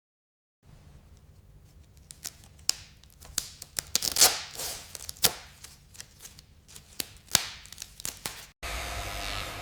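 Irregular sharp clicks and taps with some scraping, like hand work with small tools, starting about half a second in and loudest around the middle. Near the end it cuts abruptly to a steady hiss over a low hum.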